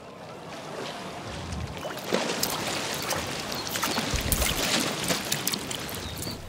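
Sea water splashing and sloshing around a swimmer, with many small crackling splashes. It swells up about two seconds in.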